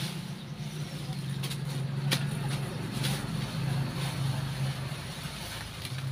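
Dry leaves rustling and crackling as they are scooped up by hand, with a few sharp snaps. A steady low engine-like hum runs underneath.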